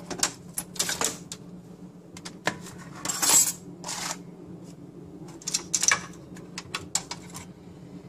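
Sheet-metal clicks, rattles and short scrapes as the HP N54L microserver's motherboard tray is worked out of its chassis, in scattered bursts with the longest scrape about three seconds in.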